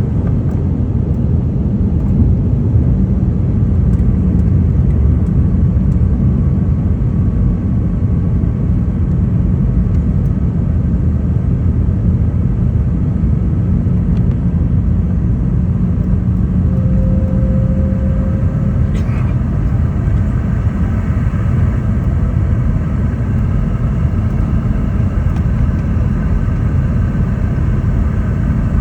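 Steady low rumble of a Boeing 717-200's cabin, the noise of its rear-mounted Rolls-Royce BR715 engines and airflow heard from inside, with a low hum running under it. A short higher tone sounds briefly about two-thirds of the way through.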